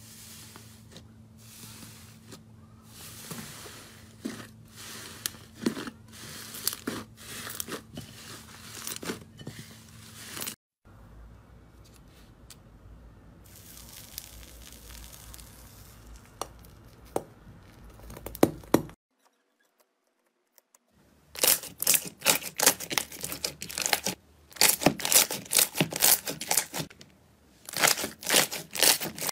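Slime being squeezed, pressed and stretched, giving sticky crackling, tearing and popping sounds. Partway through, thick orange slime is pushed with a metal potato masher, and after a brief silent gap the loudest part is dense rapid crackling as a clear glittery slime is pulled apart by hand.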